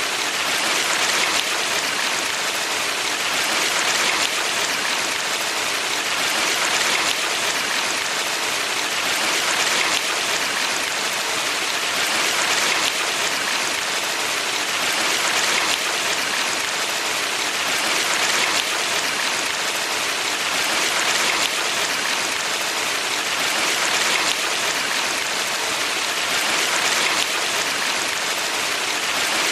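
Water of a mountain valley stream rushing steadily, a dense hiss that swells and eases gently every few seconds.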